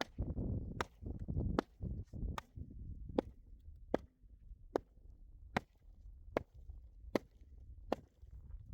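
Sharp knocks repeating at a steady pace, about one every 0.8 seconds, over a low rumble that fades after the first couple of seconds.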